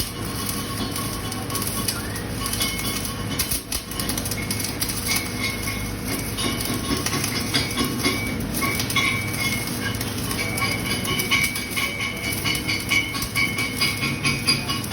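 Flux-cored arc welding on pipe: a steady crackling, sizzling arc that briefly drops out about four seconds in.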